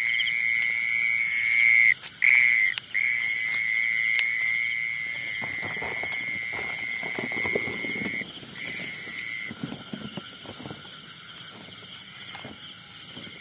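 A nearby night insect sings a steady, high continuous trill. It breaks off twice around two seconds in, stops about eight seconds in, comes back for a moment, then fades. Fainter insect chirring runs behind it, with footsteps rustling through grass and weeds.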